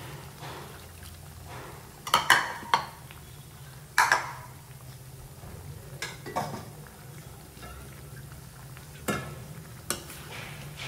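Chicken pieces being stirred in a kadai, with the spoon scraping and knocking against the pan in short strokes, loudest about two and four seconds in and again near the end, over a steady low hum.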